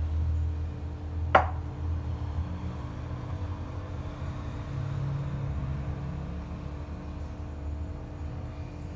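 A steady low hum, with one sharp clink about a second and a half in as a drinking glass of flour knocks against a glass mixing bowl while the dry ingredients are tipped in.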